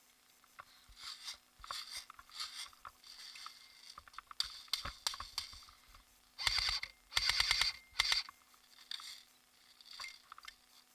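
Airsoft gun firing two short rapid bursts about two-thirds of the way in, each a fast even run of clicks, amid scattered rustling and clicking.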